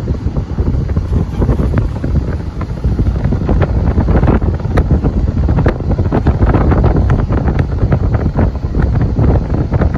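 Heavy wind buffeting the microphone: a loud low rumble with scattered irregular clicks and knocks.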